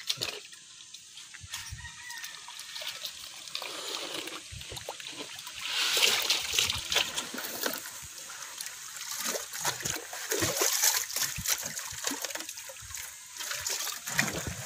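Water splashing and pouring as sand is rinsed by hand for a water filter, louder from about halfway through, with a rooster crowing.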